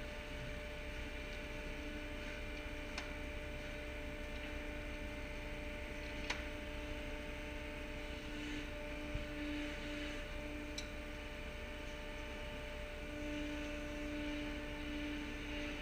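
Steady machinery hum made of several held tones over a low rumble, with a few faint clicks about 3, 6 and 11 seconds in.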